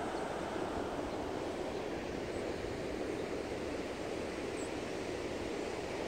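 Heavy storm surf breaking along the beach: a steady, even rush of noise with no letup.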